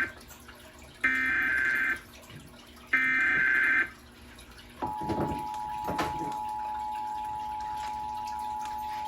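Emergency Alert System test broadcast: the last two of the three SAME header data bursts, each about a second of harsh digital warbling with a second's gap between them, then, about five seconds in, the steady two-tone EAS attention signal begins and holds.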